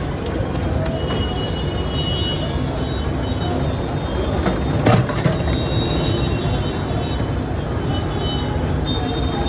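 Ice pick stabbing into a block of ice: irregular sharp cracks and chipping, with one louder strike about five seconds in.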